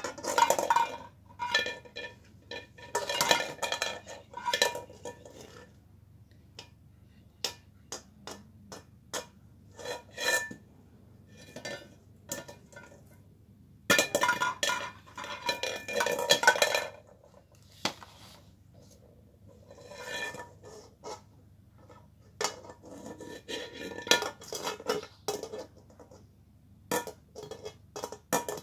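A large embossed metal bowl knocked, tipped and scraped by hand, clattering and ringing in bursts with short quiet gaps between.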